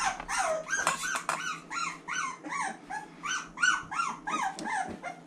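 A three-and-a-half-week-old boxer puppy crying in a rapid run of short, high whines, about three a second, each rising and then falling in pitch.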